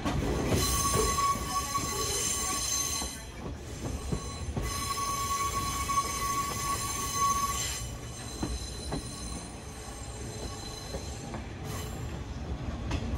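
Steel wheel flanges of a slow-moving train squealing twice, each for about three seconds, as it snakes across the points through the station yard, over the low rumble of the wheels on the rails.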